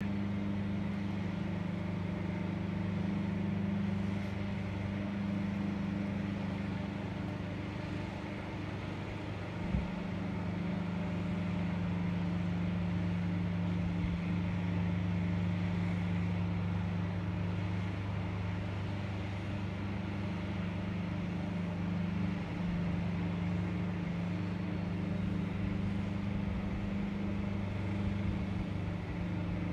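Engine of a compact tracked aerial lift running steadily, giving a continuous low drone with a deep two-note hum. There is one brief knock about ten seconds in.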